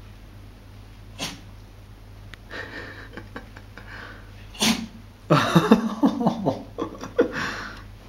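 Dachshund sneezing at bath bubbles in its nose: sharp single sneezes about a second in and again near five seconds, then a quick run of sneezes and snuffles near the end, the loudest part.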